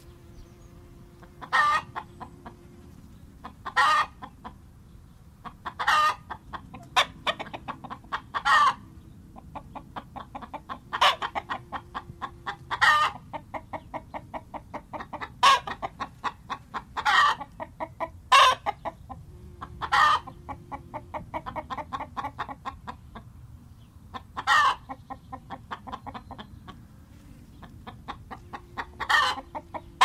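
Chicken clucking and squawking: loud squawks every couple of seconds, with a run of quick, rapid clucks through the middle.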